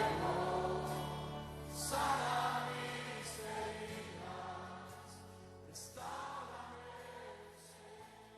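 Christian worship music with choir voices and sustained instrumental chords, fading out as the song ends.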